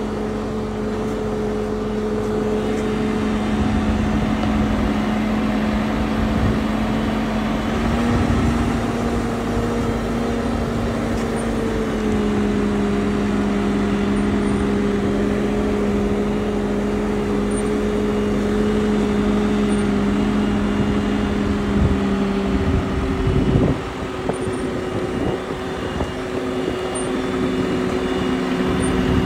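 Telehandler's diesel engine running with a steady whine, its pitch stepping up a little twice and dropping about three quarters of the way through as the boom carries a load. A short knock sounds just after the drop.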